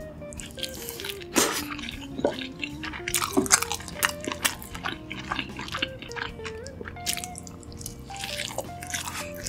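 Close-miked eating of pizza: crisp bites into the slice and chewing, many small crunches and wet mouth clicks, over background music with a simple stepping melody.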